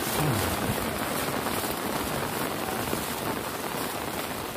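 Heavy rain falling steadily on flooded rice paddies.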